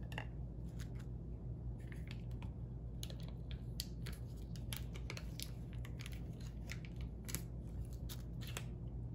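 Small plastic pots being handled on a tabletop: a string of light clicks and crinkles as a sealed peel-off lid is pulled off, thickening from about three seconds in. A low steady hum runs underneath.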